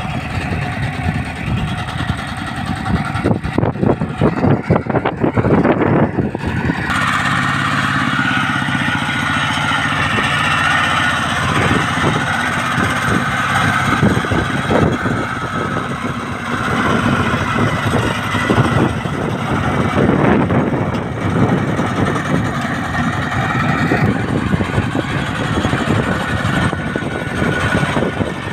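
Kubota bulldozer's diesel engine running loudly and continuously, its note changing about seven seconds in.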